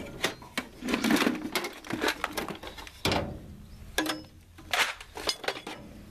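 Rummaging in a metal toolbox: an irregular run of knocks and clatters as tools are shifted about to find the tire levers.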